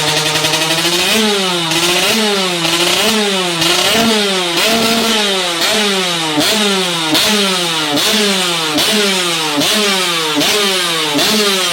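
Yamaha two-stroke motorcycle engine held at a steady idle, then blipped from about a second in: the revs rise and fall again about twice a second.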